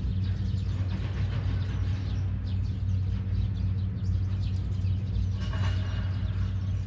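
Small birds chirping in quick, short notes over a steady low rumble, with one longer call about five and a half seconds in.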